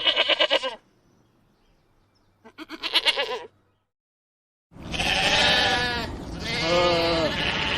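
Bleating: two short, quavering bleats, then after a brief silent gap two longer bleats over a steady background hiss.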